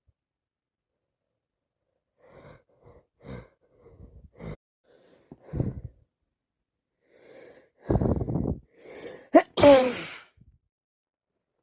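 A woman with a congested head cold takes a run of short, catching breaths, then a long gasping in-breath. This builds to one loud sneeze near the end.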